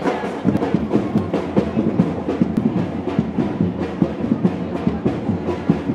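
Music with a quick, steady drum beat.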